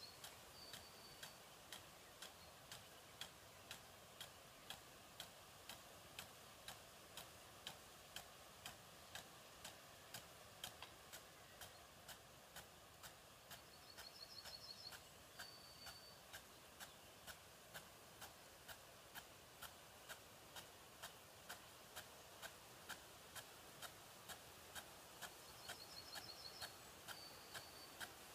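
Faint, steady ticking, about one and a half ticks a second, from a field irrigation rain gun's swinging arm driving the water jet round, over a soft hiss of spray. Three times a small bird sings a short phrase of quick notes ending in a brief held note.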